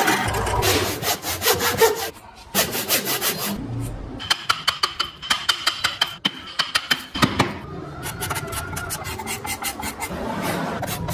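Hand carving chisel cutting and scraping wood in quick repeated strokes, about four or five a second at the busiest, each one peeling off a shaving, with a short pause about two seconds in. Near the end it turns into a steadier scraping.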